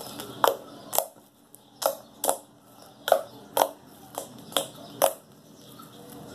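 Butter snow slime being pressed and stretched by hand, giving about nine sharp wet pops and clicks, roughly two a second, as trapped air is squeezed out.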